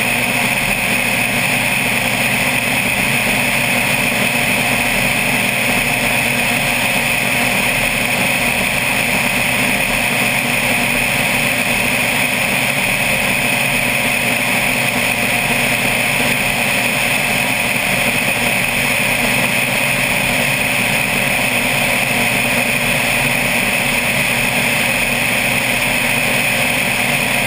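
Single-engine propeller plane's engine and propeller droning steadily in cruise flight, with rushing airflow, heard from a camera mounted on the outside of the aircraft.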